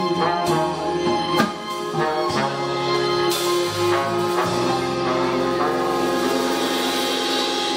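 Live band with horns, keyboard, electric guitar, bass and drum kit playing without vocals: a few sharp accented drum hits, then a long held chord with cymbals ringing over it, as at the close of a song.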